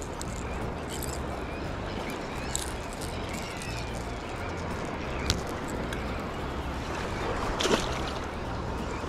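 Sea water washing and lapping over the rocks at the water's edge, with wind rumbling on the microphone. A sharp click sounds about five seconds in.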